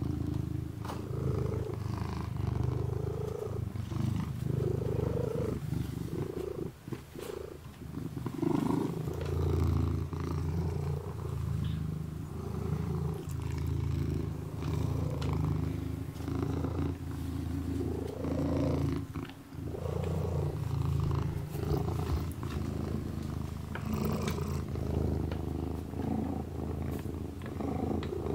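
Ginger kitten purring, a steady low rumble that swells and eases with each breath, breaking off briefly twice.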